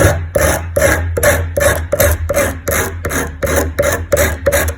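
Pottery trimming tool being rubbed back and forth on a clamped EZE-LAP diamond hone, a rhythmic rasping scrape at about four strokes a second as the edge is sharpened.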